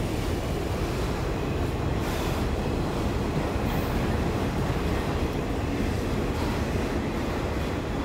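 Freight train of auto rack cars rolling past, a steady rumble of steel wheels on the rails.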